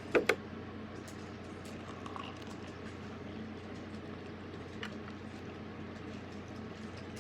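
Water trickling and splashing steadily as it is poured into a small plastic makeup brush washing machine to rinse out leftover soap bubbles. Two short sharp knocks come right at the start.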